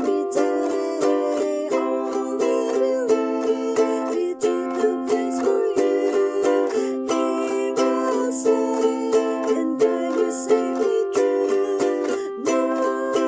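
Music with plucked string notes over a steady, even rhythm.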